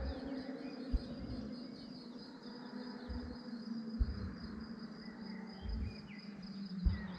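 Roadside ambience between passes: insects chirring steadily, a distant engine droning at a steady pitch, and a few short low thumps.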